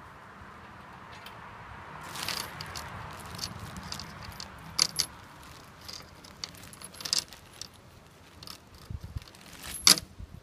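Small metal hardware (bolts, washers and nuts) clinking and jingling as a hand rummages through plastic bags of it, with the plastic crinkling. A few sharp clinks stand out, the loudest just before the end.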